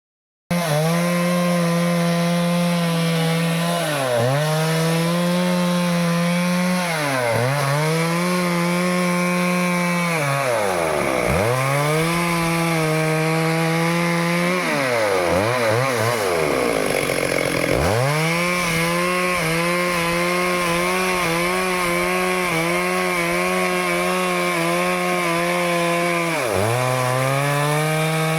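Stihl two-stroke chainsaw running at high revs while cutting into a teak trunk. The engine note sags and recovers several times as the chain bites into the wood, dropping deepest about halfway through.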